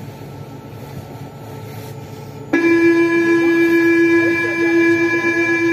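A loud, steady, horn-like tone from a Siemens VAL 208 metro train starts abruptly about two and a half seconds in and holds unchanged for over three seconds, over a low hum.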